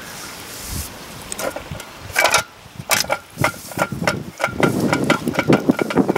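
A run of sharp small metallic clicks and taps, some with a brief ring, then strong gusty wind buffeting the microphone from about four and a half seconds in.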